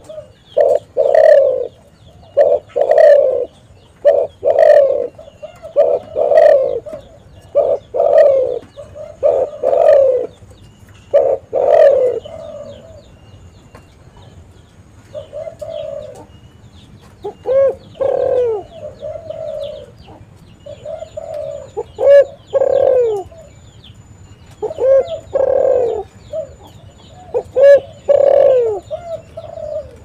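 Spotted dove cooing: a run of repeated low coos, evenly spaced, for about twelve seconds. After a short pause come more varied coo phrases with downward-sliding notes.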